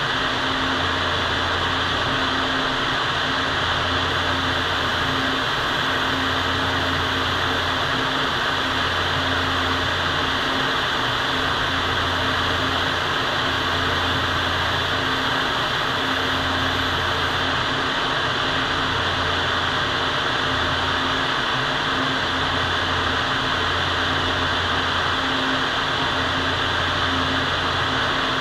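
Paint spray booth's ventilation fan running: a steady rushing of air with a low hum that comes and goes every second or two.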